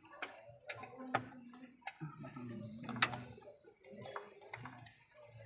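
A series of sharp clicks and light knocks at irregular intervals, about eight in five seconds, the loudest about three seconds in, over a faint low background murmur.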